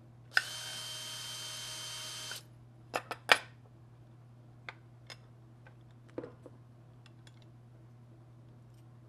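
Cordless drill/driver with a Torx bit running steadily for about two seconds as it backs a screw out of a hard drive, then stopping. Three sharp knocks follow a moment later, the last of them the loudest, then a few light clicks from handling small metal parts.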